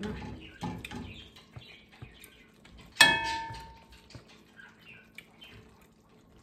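Metal ladle stirring and scraping beef in a stainless steel frying pan. About three seconds in the ladle strikes the pan with one sharp clang that rings briefly, followed by softer scrapes and clicks.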